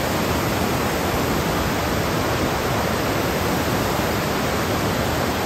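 Loud, steady rush of water from the 83-metre Montmorency Falls, heard from close above the falling water.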